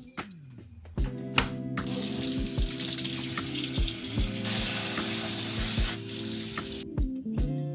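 Kitchen faucet running into the sink, starting about two seconds in and cutting off abruptly near the end, over background guitar music with a steady beat.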